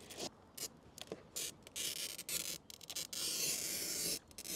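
Oil-filled glass cutter's wheel scoring a pane of greenhouse glass along a straightedge. It makes a scratchy hiss in several short strokes with pauses, then one longer stroke about three seconds in. The score is made in stages, pausing and then resuming the pressure rather than in one pass.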